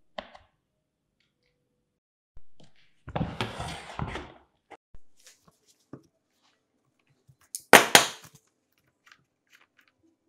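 Hand tools and chainsaw parts handled on a wooden workbench: a rough scraping rattle lasting about a second, starting about three seconds in, a sharp knock near eight seconds, and a few small clicks.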